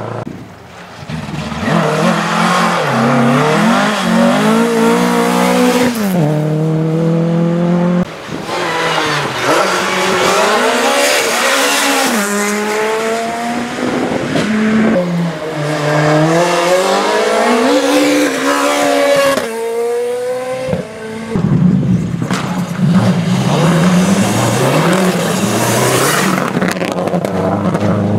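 Rally cars driven hard on a stage, one after another: engines revving up and down through gear changes and corners, with tyre noise on the loose surface.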